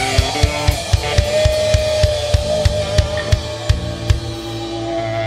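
Live rock band playing: drum kit with bass drum hits about three a second and cymbals under a sustained guitar note. The drums stop about four seconds in, leaving the held notes ringing.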